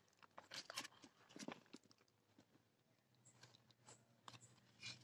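Faint crunching and rustling of hands spreading and pressing a soil and cow-dung mix in a polystyrene planter box, a few short scattered crunches.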